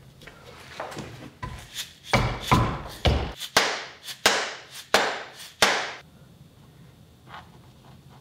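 Oak axe handle being knocked down against a wooden workbench to drive the axe head onto it: a few light taps, then a run of about seven sharp, loud wooden knocks a little under a second apart, stopping about six seconds in.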